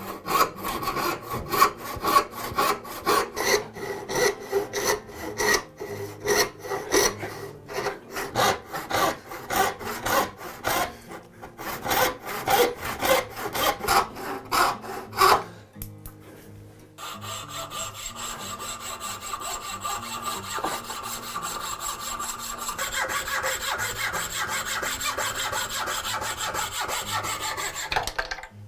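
Hand tool strokes cutting wood, several quick back-and-forth strokes a second, as the scales for a screwdriver handle are shaped. After a short pause about halfway through, a steady sound with held high tones takes over until the end.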